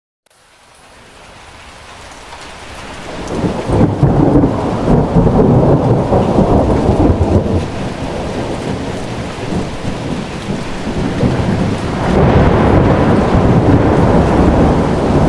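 Heavy rain pouring down steadily, fading in over the first few seconds and growing louder again about twelve seconds in.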